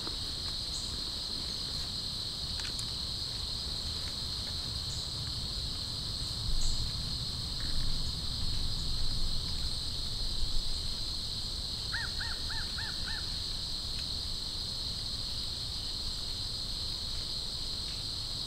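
Crickets chorusing in a steady high-pitched trill, with birds calling over it: louder calls in the middle and a quick run of five notes shortly after.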